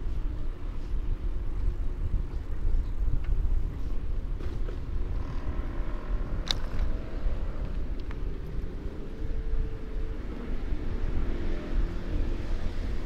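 Road traffic heard from a moving bicycle, over a constant low rumble of wind on the microphone, with one sharp click about six and a half seconds in.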